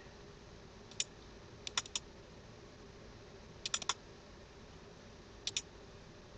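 A few sharp computer mouse clicks in small groups: one about a second in, three near two seconds, a quick run of four near four seconds and a pair near five and a half seconds, over a faint steady hum.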